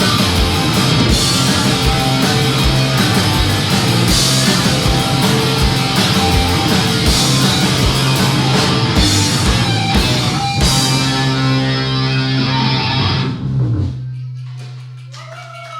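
Live punk rock band with electric guitar and drum kit playing the instrumental close of a song. The drum hits stop about eleven seconds in, a final chord rings on, and the band cuts off about fourteen seconds in, leaving a low steady hum.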